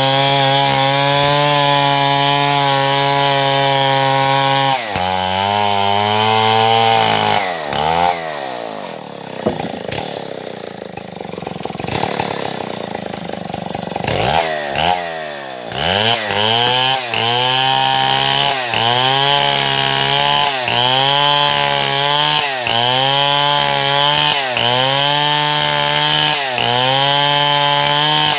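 Stihl MS070 two-stroke chainsaw running at high speed for the first few seconds, then dropping away to a low idle for several seconds. It then revs up and dips again in a regular cycle, about once every second and a half, as it works through wood.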